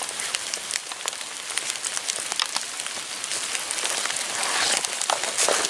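Rain falling in woodland: a steady hiss with many small drop ticks, growing louder over the last second or so.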